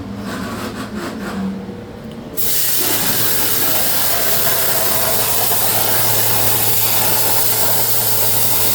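CNC plasma cutter's torch arc striking about two seconds in, then cutting steel plate with a loud, steady hiss. A steady low hum runs underneath.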